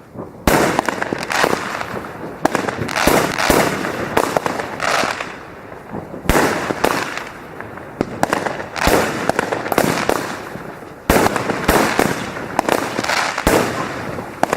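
A fireworks battery firing: a string of bangs about once a second, each trailed by hissing and crackling bursts.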